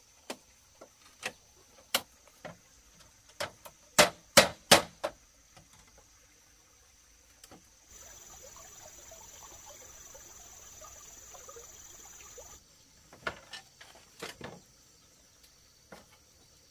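Irregular sharp knocks, with a cluster of loud ones close together about four seconds in, over a steady high-pitched tone in the background. From about eight seconds to twelve and a half seconds the knocks give way to a steady hiss.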